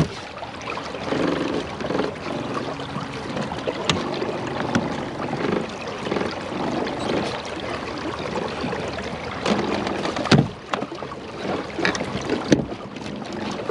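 Water lapping against kayak hulls with wind on the microphone, broken by a few sharp knocks, the loudest about ten seconds in.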